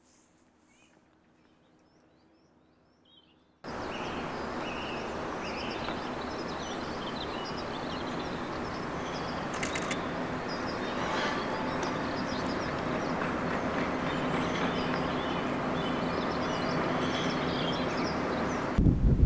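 Faint bird chirps, then, after an abrupt cut, a steady outdoor rushing noise with birds chirping faintly over it.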